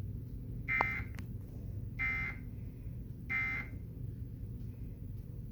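Emergency Alert System end-of-message (EOM) code: three short buzzy data bursts about a second apart, the signal that closes the alert, heard off a television.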